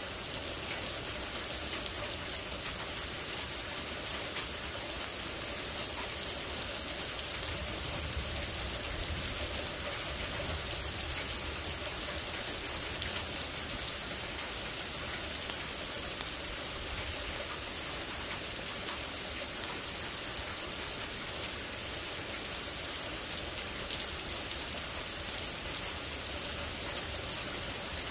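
Thunderstorm rain falling steadily, a dense, even hiss made up of many small drop hits, with no big changes in level.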